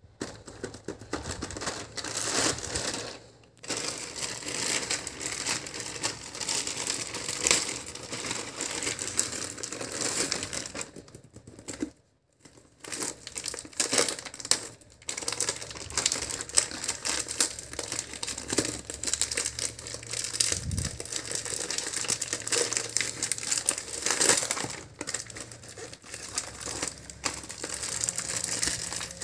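Plastic mailer bag and clear plastic packaging crinkling and rustling as they are handled and opened, with short pauses about three and twelve seconds in.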